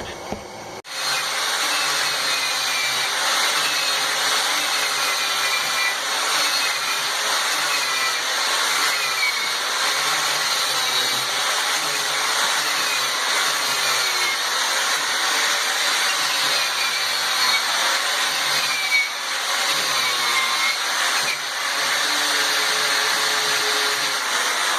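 Power grinder grinding the hardened steel of a railroad-spike knife blade for its finish grind and edge: a steady grinding hiss with a faintly wavering whine. It starts abruptly about a second in.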